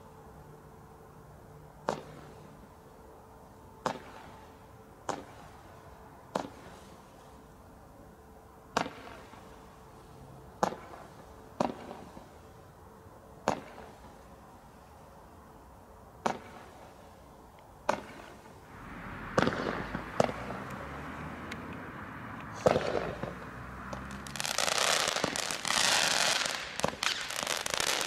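Bright Star Giant 18-shot barrage firework cake firing, one sharp report every second or two. About two-thirds of the way through, the shots come faster and the bursting stars give a loud, dense crackling.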